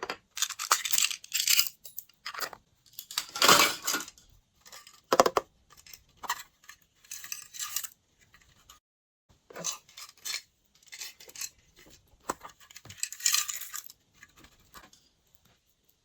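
Glossy slime being mixed and squeezed, giving irregular bursts of sticky crackling and popping with small clicks, separated by short pauses.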